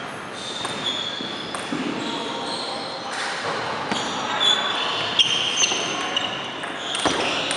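Table tennis serve and rally: the ball clicks off paddles and the table several times a second from about four seconds in, with sneakers squeaking on the hardwood floor in a large echoing gym.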